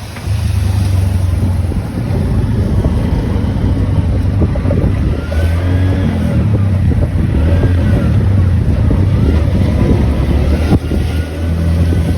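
Car on the move: a steady low engine and road rumble with some wind noise.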